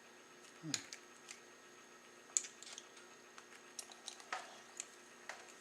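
Faint, scattered clicks and taps of hard plastic model-kit pieces being handled and fitted together, the sharpest about two and a half seconds in.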